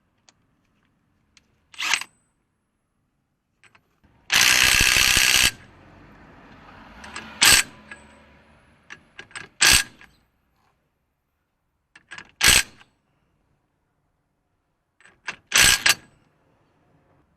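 Workshop tool sounds: a power tool runs in a burst of about a second, then four sharp, loud metallic clicks come a few seconds apart, each with a few lighter ticks around it.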